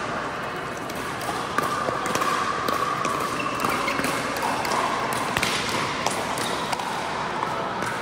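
Pickleball paddles striking a hard plastic ball during a rally, sharp pocks at irregular intervals, over a steady background hum.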